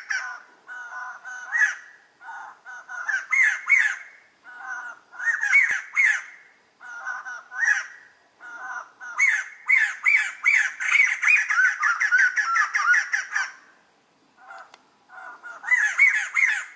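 White-crested laughingthrush giving its laughing call: repeated phrases of rapid notes that rise in pitch through each phrase, with one long run in the middle and a short pause shortly before a final phrase.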